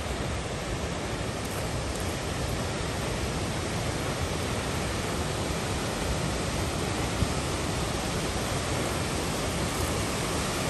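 Steady rush of a waterfall, an even wash of falling water that grows slightly louder.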